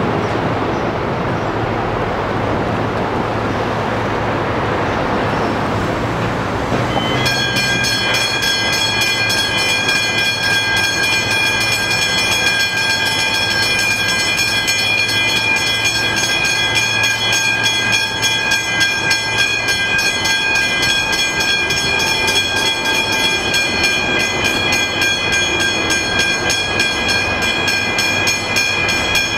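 Road traffic passing, then about seven seconds in the level crossing's Westinghouse hybrid mechanical bells start up and ring rapidly and continuously, warning that a train is approaching.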